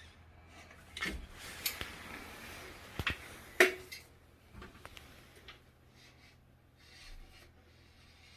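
Caulking work around a toilet base: rubbing and scraping with a few sharp clicks from the caulk gun and hands, the loudest click about three and a half seconds in.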